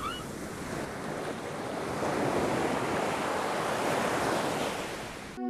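Steady rushing noise, swelling around the middle and cutting off abruptly just before the end.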